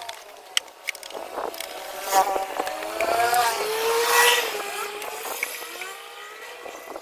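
A motor vehicle engine revving, its pitch rising and then falling, with a few sharp clicks.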